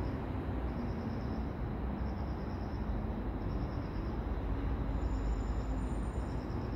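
Night-time city ambience: a steady low rumble of distant traffic, with a high chirp that repeats a little more often than once a second.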